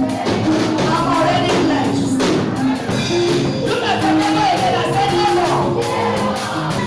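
Church praise music with singing and a steady percussion beat, including tambourine-like shaking.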